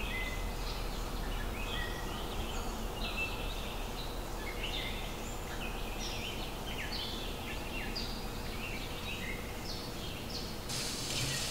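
Small birds chirping in quick, short, mostly falling calls over a steady background hum. A brighter hiss comes in near the end.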